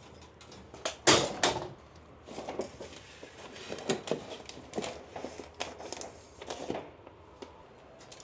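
A string of irregular knocks and clunks, like hard objects being handled and shut; the loudest comes about a second in, and smaller ones follow for several seconds.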